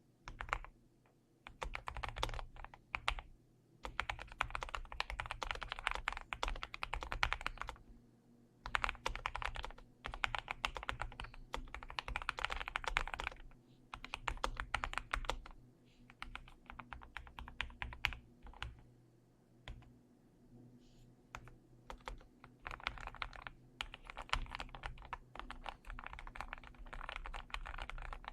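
Typing on an ATK Yogo 75 Pro low-profile mechanical keyboard with linear POM switches in a gasket-mounted aluminium case, a soft, creamy run of keystrokes in bursts with brief pauses between them.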